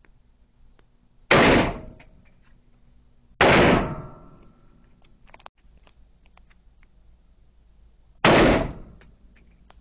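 Three gunshots, each followed by a short fading echo: one about a second in, the next two seconds later, and the third near the end.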